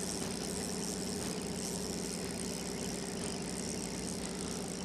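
A fishing boat's onboard engine running steadily with an even, unchanging low hum.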